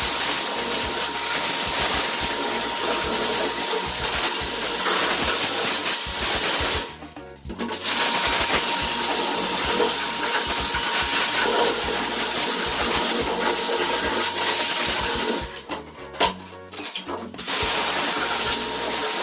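Steady hissing spray of water, such as a service washer jet, with a faint steady whine under it. It cuts out briefly about seven seconds in and again for about two seconds near the end.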